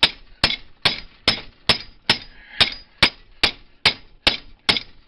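Hammer blows in a steady rhythm, about two to three a second with a short pause midway, on the rusted-on steering gear part of a riding mower, each strike with a brief metallic ring as they drive the stuck part loose.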